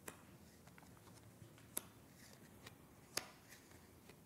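Playing cards dealt face up one at a time onto a cloth close-up pad: several faint, sharp card snaps, roughly a second apart.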